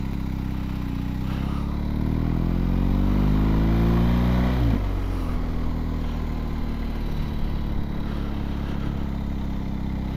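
BMW R 1250 GS Adventure's boxer-twin engine pulling, its note rising steadily for a few seconds. About halfway through the note drops off sharply, and the engine runs on evenly at lower revs.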